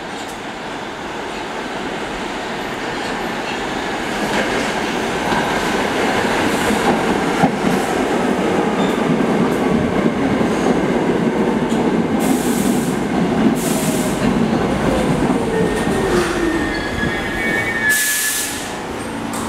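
R46 subway train pulling into the station, its wheels rumbling on the rails and growing louder as the cars come alongside. As it slows, a whine falls in pitch and the wheels or brakes squeal high near the end, with a short hiss as it comes to a stop.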